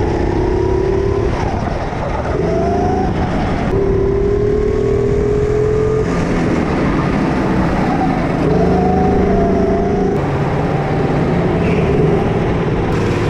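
Rental go-kart engine running under throttle, heard up close from on board. Its pitch climbs slowly along the straights and drops back into the corners. The note jumps abruptly a few times between stretches of driving.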